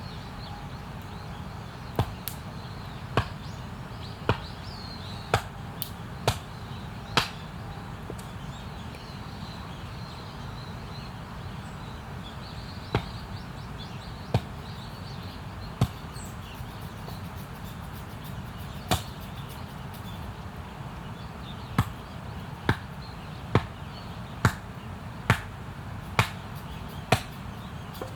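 Chopping firewood: sharp strikes about once a second, in runs of several with pauses between, over a steady low background rumble.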